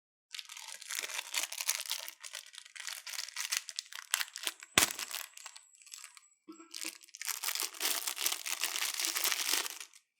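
A small product box and its packaging being handled and opened, with crinkling and rustling in two long spells. One sharp knock about five seconds in.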